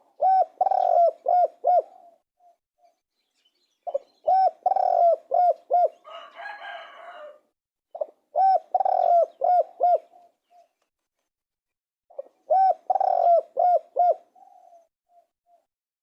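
Spotted dove cooing: four phrases about four seconds apart, each a quick run of short rising-and-falling coos. A brief scratchy noise follows the second phrase.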